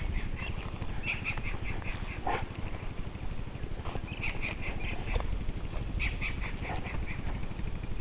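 An animal calling in short runs of rapid, high chattering notes, three runs a couple of seconds apart, over a steady low rumble.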